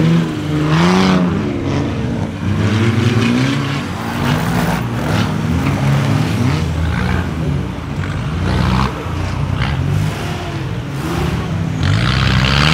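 4x4 SUV engine revving up and down repeatedly as it is driven through rough off-road terrain, with a short burst of hissing noise near the end.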